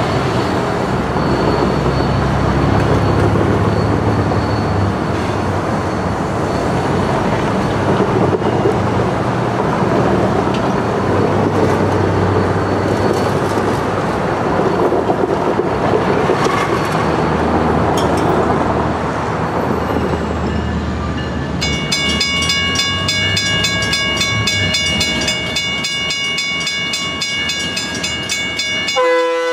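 Diesel switching locomotives running along the track, mixed with passing street traffic. About 22 s in, a rapid, evenly repeating ringing of several high tones comes in. In the last half second a locomotive horn chord sounds suddenly, from GP25 #3170's Leslie RS3K horn.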